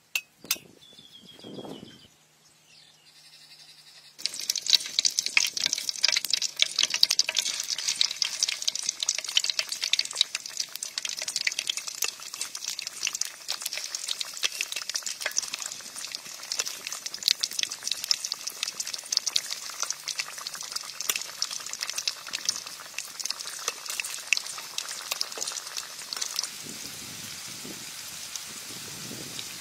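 Stuffed bitter melon rings deep-frying in hot oil: a dense, crackling sizzle that starts suddenly about four seconds in, after a click and a brief low scrape. The crackle eases slightly near the end.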